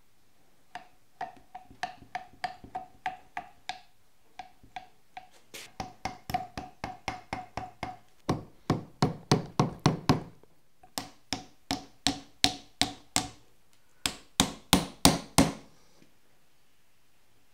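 Soft-faced mallet tapping the worm shaft assembly home in an Ellis dividing head's housing: runs of quick light taps, about three or four a second, each with a short metallic ring. The taps grow louder in the second half and stop about a second before the end.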